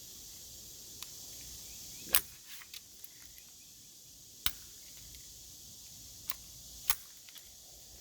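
Sharp clicks and clacks of a Kel-Tec CP33 .22 pistol being handled while trying to chamber a round, a few scattered strokes with the loudest about two, four and a half and seven seconds in. A steady high hiss runs underneath.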